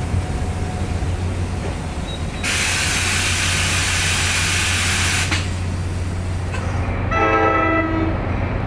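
Stopped NJ Transit commuter train with a steady low engine rumble, and a loud burst of air hissing for about three seconds starting around two and a half seconds in. From about seven seconds an approaching NJ Transit locomotive sounds a held multi-note horn chord.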